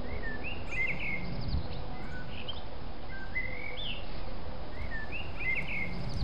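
Small birds chirping in short rising and falling phrases about every half second, over a steady background hiss.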